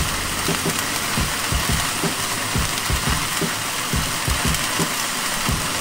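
Flames roaring up around a thick porterhouse on a grill grate, a steady hiss of burning fat with an irregular low fluttering underneath, as the meat's sides char.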